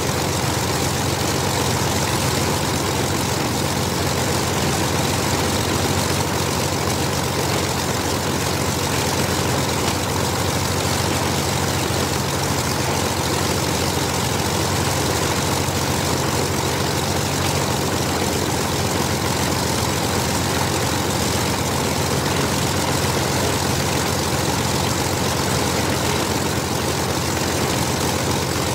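Both Rolls-Royce Merlin V-12 engines of a de Havilland Mosquito ground-running steadily, propellers turning, with no change in speed or level.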